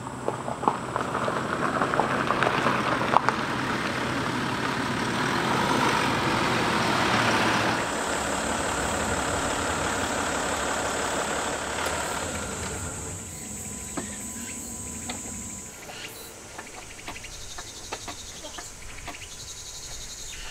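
Land Rover Discovery 4 driving up a winding hill road, engine and road noise steady, then easing off and going quieter about 13 seconds in.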